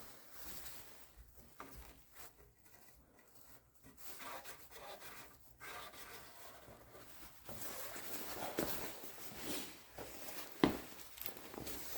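Faint rubbing and wiping of a gasket sealing surface being cleaned by hand, sparse at first and busier in the second half, with one sharp knock near the end.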